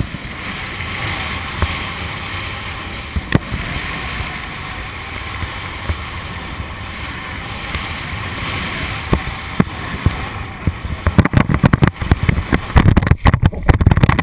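Steady rushing air noise on the microphone of a camera flying high above the ground, with a few sharp clicks. About eleven seconds in it breaks into loud, irregular low thumps and buffeting.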